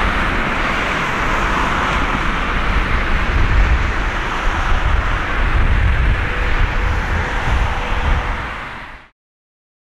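Boeing 787-9 jet engines rushing as the airliner rolls out on the runway after touchdown, with a low rumble that swells in the middle. The sound fades and then cuts off near the end.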